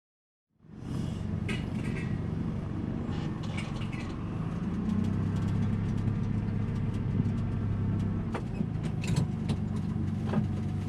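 Motor vehicle engine running with a steady low hum, cutting in suddenly about half a second in, with a few light clicks and rattles over it.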